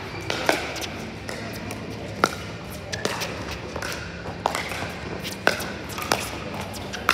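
Pickleball rally: a plastic pickleball popping sharply off paddles, roughly once a second, with fainter pops from other courts in between.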